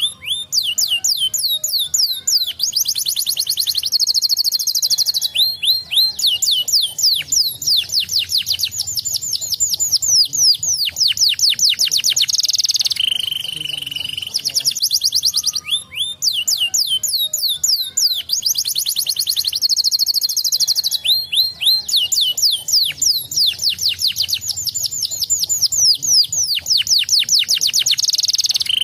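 Domestic canary singing a long, fast song of rapid falling whistles, tight trills and buzzy rolls. The song breaks off about halfway through and then starts over in much the same pattern.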